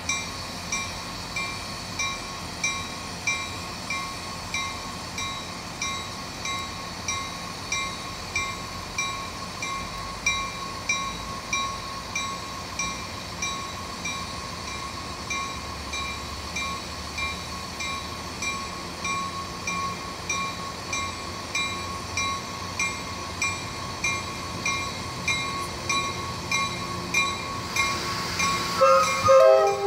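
Railroad crossing bell ringing steadily at about one and a half strikes a second. Near the end a locomotive's multi-chime air horn starts to sound over it.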